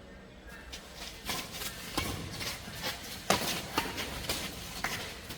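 Badminton rackets striking a shuttlecock during a rally: a series of sharp hits starting about a second in, with softer knocks of footwork between them.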